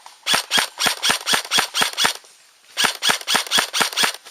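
Airsoft gun firing close by in two quick strings of sharp shots, about four a second: roughly eight shots, a short pause, then about six more.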